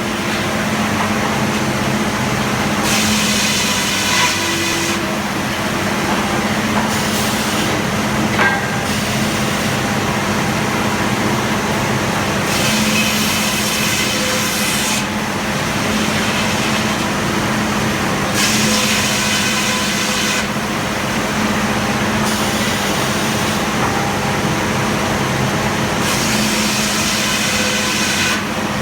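Frick sawmill running with a steady machine hum, its saw cutting into wood about five times in passes of two to three seconds, each cut adding a bright hissing sound.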